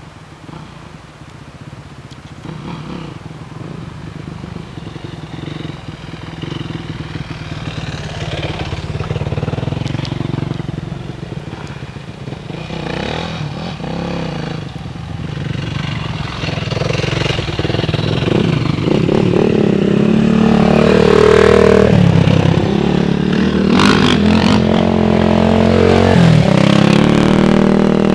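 Dirt bike engines running and revving, the pitch rising and falling with the throttle, growing steadily louder over the second half as a bike comes up close.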